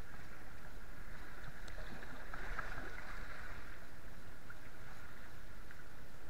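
Steady rushing noise of a kayak riding up a wet conveyor-belt boat ramp, with water running on the belt and a few faint ticks.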